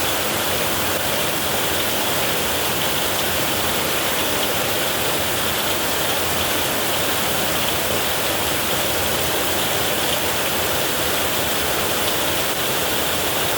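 Heavy rain falling steadily on a tin roof, an even hiss with no break and no thunder.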